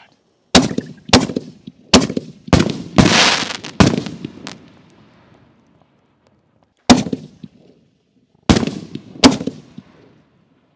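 Dominator Simply The Best 5-inch canister shells going off in quick succession: about nine sharp bangs, six in the first four seconds, a lull of about two seconds, then three more, each trailing off.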